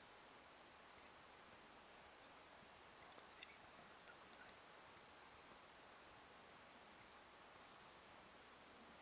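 Faint chirping of field insects in short repeated pulses over a low background hiss, with two brief sharp clicks a few seconds in.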